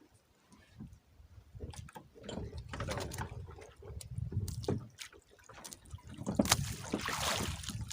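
Water splashing and sloshing around a small fishing boat, with irregular knocks and clatter of handling; the splashing grows loudest in the last second or so.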